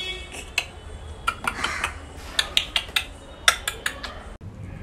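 Dishes and kitchen utensils clinking and clattering in a string of short, irregular clicks.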